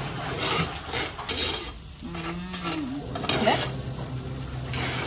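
Metal spoon scraping and clinking against a stone mortar and cookware in a short run of strokes, with a brief pitched voice-like sound a little after two seconds in.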